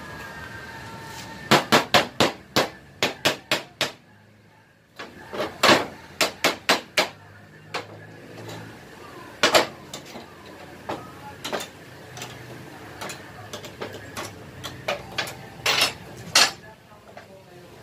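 Metal hand tool striking metal in quick runs of sharp taps: about eight in a row, a short pause, about six more, then single strikes near the middle and near the end, with lighter clinks of tools between.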